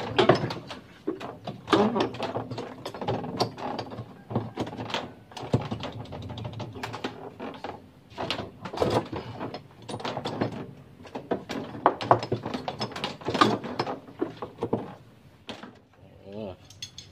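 Repeated knocks, clicks and clatter of plastic and metal parts as a top-loading washing machine is dismantled by hand and its inner wash basket is worked loose and lifted out.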